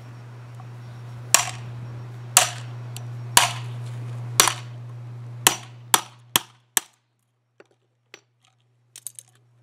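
Claw hammer striking an adjustable wrench that grips a small clear plastic piece against concrete, breaking open the Magic 8 Ball's plastic window housing. Eight sharp metal-on-metal blows: four about a second apart, then four quicker ones.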